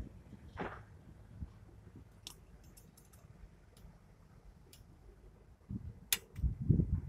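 Light metallic clicks of drum brake parts being fitted by hand and with a screwdriver on the brake backing plate: a short swish under a second in, scattered sharp clicks, and one louder click about six seconds in. A low rumbling noise comes in near the end.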